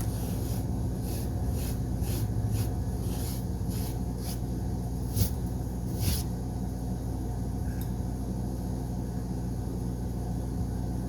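Steady low hum of room noise, with a run of soft, short ticks about two a second during the first six seconds.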